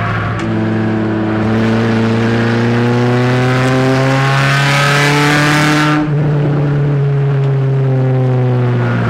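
Race car engine heard from inside the car, pulling with its pitch climbing for about six seconds; then the throttle is lifted suddenly and the pitch falls.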